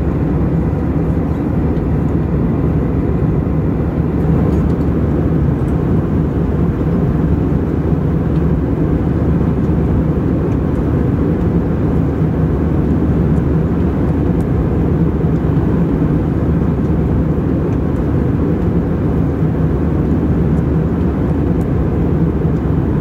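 Steady cabin noise inside an Airbus A320 in flight: a constant deep rush of airflow and engine drone.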